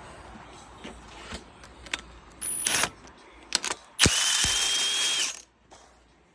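Handheld power tool running in two short bursts, a brief one and then a longer one of about a second, with scattered metallic clicks of tools and parts: loosening the last bolt holding the cylinder head on the engine.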